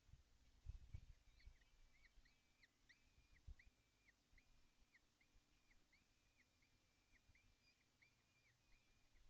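Young kestrels calling faintly: a long, even series of short, thin high calls, about two a second. A few low bumps come through, the clearest about a second in.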